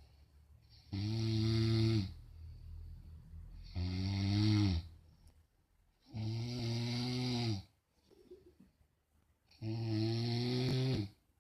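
A person snoring loudly: four long, rasping snores about two and a half seconds apart, each dropping in pitch at its end.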